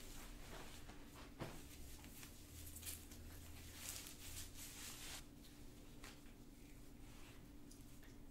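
Faint rustling of clothing, with a few soft swishes of fabric as a robe comes off and lingerie is pulled on, over quiet room tone with a low steady hum.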